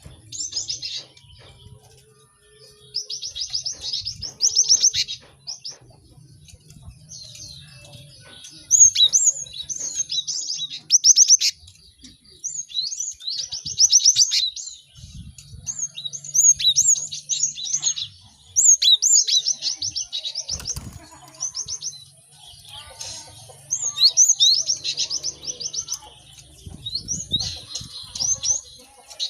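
Several cinereous tits (gelatik batu) chirping and singing busily: bursts of rapid, high-pitched note trains, each one to two seconds long, with short pauses between them and songs overlapping.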